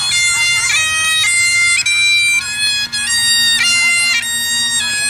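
Great Highland bagpipes played solo: a melody of held notes changing about every half second, with quick grace-note flourishes, over the steady hum of the drones.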